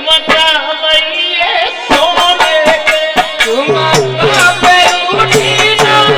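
Instrumental Indian folk music for a Holi song: a sustained melody line over a steady rattling percussion beat, with a low bass line coming in about four seconds in.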